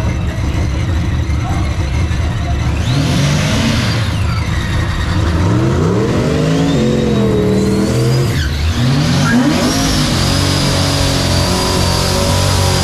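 Drag-racing street cars accelerating hard down the strip. The engine pitch climbs and drops back a few times around the middle, as the gears change.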